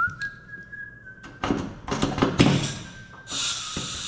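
Pneumatic rivet gun hammering in short bursts against a tungsten bucking bar, setting aluminium rivets in a Van's RV-10 horizontal stabilizer. A few short bursts come in the middle and a longer one near the end.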